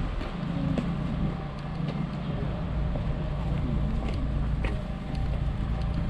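Steady low rumble of road traffic, with a few faint clicks.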